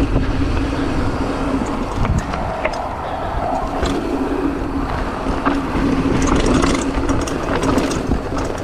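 Mountain bike rolling fast down a dirt and rock trail: tyres on dirt and loose stones, the rear freehub buzzing steadily as it coasts, and sharp rattles of the chain and bike over bumps, with wind rumbling on the microphone.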